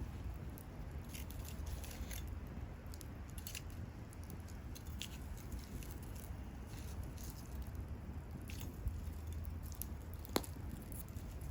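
Wood fire crackling: scattered sharp pops and snaps over a low steady rumble, with one louder pop about ten seconds in.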